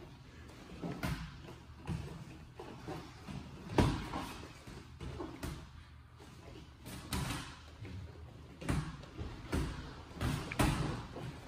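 Irregular thuds and slaps of boxing gloves landing during sparring, with a sharper, louder hit about four seconds in.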